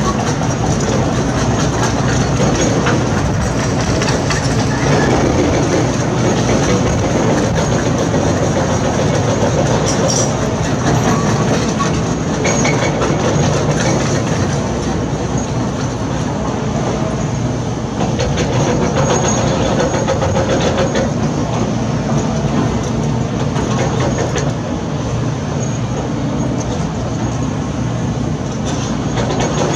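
Heavy construction machinery at work: steady diesel engine noise with continuous clattering and clanking throughout.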